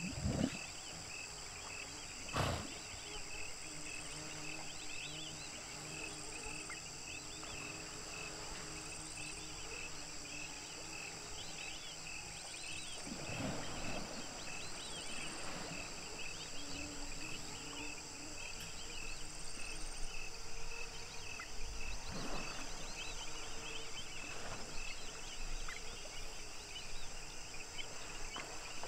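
Hippos grunting and honking low at dusk over a steady, pulsing high chorus of night insects. The hippo calls grow louder about 13 seconds in and again around 20 seconds in, and a sharp click comes about two seconds in.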